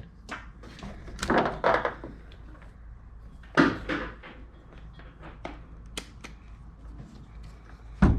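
Handling noises while working on a car door: a few short scrapes and rustles, scattered light clicks, and one louder thump near the end.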